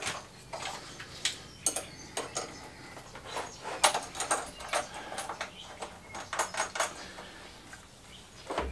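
Metal battery terminal bars and their bolts clinking and tapping as they are fitted by hand onto the terminals of lead-acid battery cells: irregular sharp clicks, busiest about four seconds in and again around six and a half seconds.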